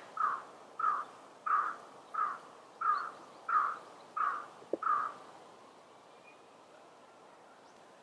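A crow cawing: eight harsh caws in an even series, about one and a half a second, stopping about five seconds in.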